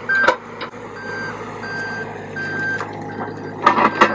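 Wacker Neuson 803 mini excavator tracking, its travel alarm beeping in short repeated tones over the steady running of the diesel engine. There are a few sharp knocks, loudest near the end.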